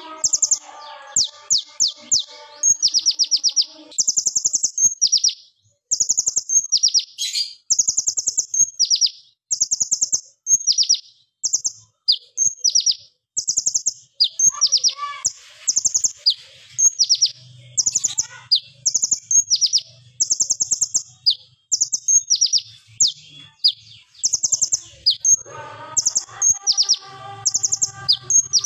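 Crimson sunbird (kolibri ninja, konin) singing: over and over, short sharp, loud rapid-fire trills of very high ticking notes, about one burst a second, with brief pauses between runs.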